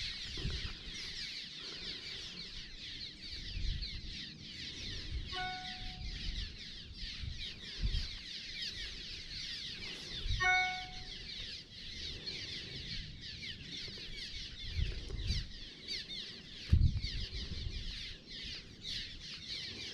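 Many small birds chattering and twittering without a break, with two short, clear pitched calls about five seconds apart. Occasional low thuds.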